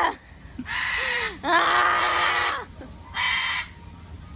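A white cockatoo screeching in repeated calls, each under a second long, with short gaps between them.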